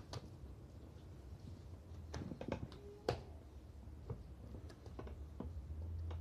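Marinated meat slices being pressed and stacked onto a vertical trompo spit, making soft wet slaps and squishes. A cluster of sharper knocks comes a little past halfway, all over a steady low hum.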